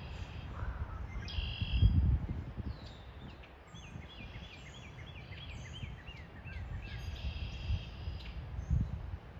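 Wild songbirds singing: a run of about a dozen quick down-slurred whistled notes through the middle, with buzzier trilled phrases before and after. Under the birds runs a low rumbling noise, loudest about two seconds in.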